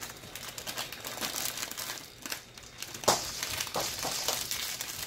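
Packaging crinkling and rustling as items are handled and unwrapped, a quick run of crackles with a sharper one about three seconds in.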